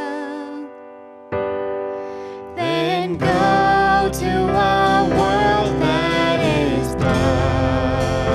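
Church praise band music. A held keyboard chord fades away and keyboard chords start again about a second in. About two and a half seconds in the fuller band comes in with a wavering melody line.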